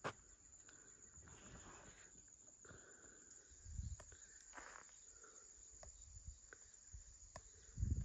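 Faint footsteps and rustling of someone walking over open ground, with scattered light clicks and a couple of low thumps.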